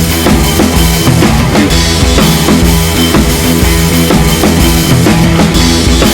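Loud background music with a steady drum beat: bass drum and snare over sustained bass notes.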